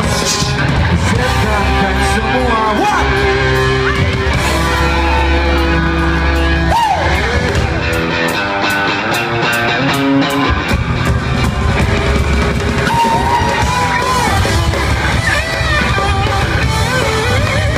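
A live rock band playing a song, with a singer's voice over electric guitar and drums.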